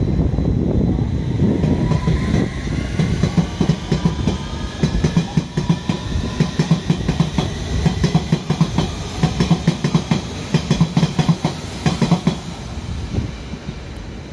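Electric trains in the station. A London Underground S7 Stock train pulls away, its traction motors giving a rising whine over a heavy rumble. Its wheels make rapid clicking over the rail joints.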